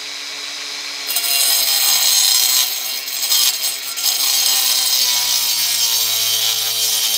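Makita 18-volt cordless angle grinder with a diamond blade cutting a brick. The motor whines steadily, then a loud grinding hiss starts about a second in as the blade bites into the brick.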